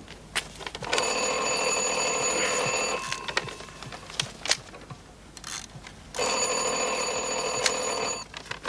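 Telephone bell ringing twice, each ring lasting about two seconds, with a pause of about three seconds between them; an incoming call not yet answered.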